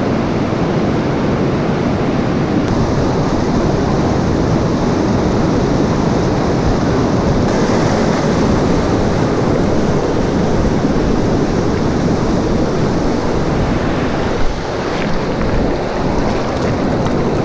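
Fast glacial meltwater river rushing steadily over stones, with wind buffeting the microphone.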